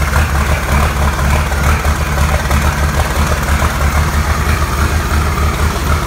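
Tractor engine idling steadily, heard close to its exhaust stack, with an even low pulsing rumble.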